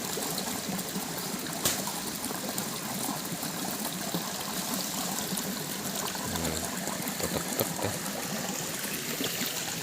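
Flowing water running steadily, with one sharp click about a second and a half in and a brief faint voice around six and a half seconds.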